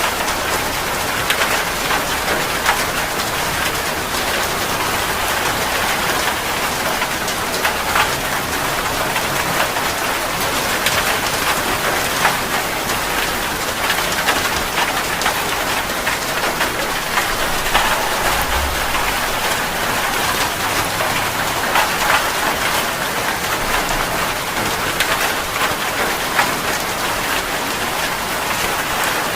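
Steady heavy rain, a dense patter of drops splashing on a surface.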